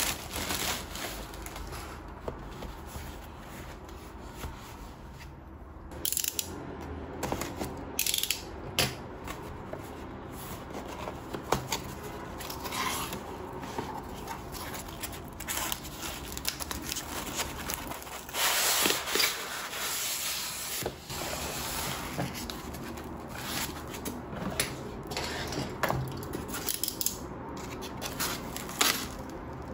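Unboxing handling noise: a plastic mailer bag rustling and tearing, cardboard box flaps being pulled open, and a styrofoam block rubbing and scraping. Near the end a box cutter scrapes along the styrofoam to slit the tape. Many small knocks run through it all.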